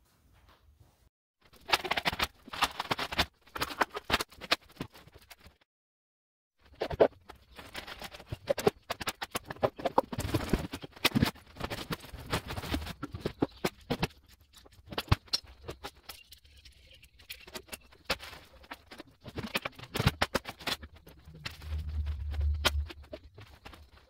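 Busy clatter of hand tools and cordless power tools being picked up off a wooden workbench and put away, with many small knocks and clicks in quick succession. The clatter stops briefly about six seconds in, and there is a low rumble near the end.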